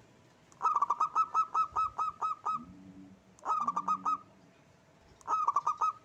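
Zebra dove (perkutut) singing in three bursts of quick, clipped cooing notes. The first is a long run of about a dozen notes that starts fast and spaces out; the next two, near the middle and near the end, are short.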